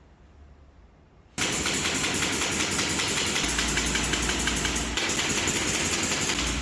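A power tool starts suddenly about a second and a half in and runs loud and steady with a fast rattling rhythm; a low steady hum joins it about halfway through.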